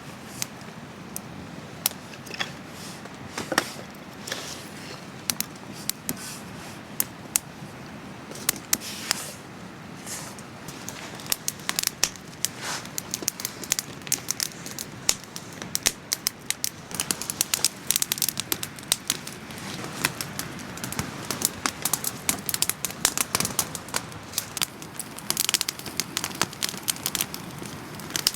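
Newly lit kindling campfire crackling with sharp pops, which come thicker and faster as the fire catches, over a steady hiss of falling rain.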